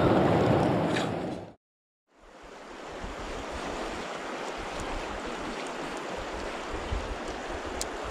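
Water splashing as a chub is released by hand into the river at a rocky edge, fading out after about a second and a half; after a short silence, a steady rush of flowing river water fades in.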